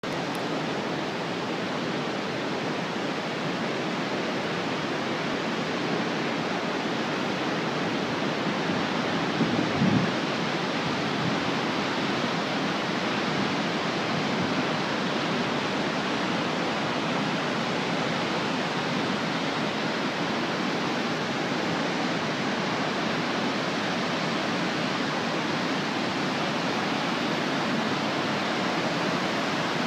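Steady, even rushing of a large waterfall, with a brief low thump about ten seconds in.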